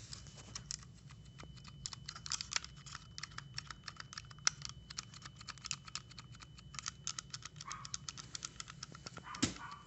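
A 2012 Ford Explorer's rear power-window rocker switch, taken out of the door, being flicked back and forth by hand: rapid, irregular plastic clicking, several clicks a second. The switch is being worked to clean its corroded, dirty contacts after a spray of electrical contact cleaner.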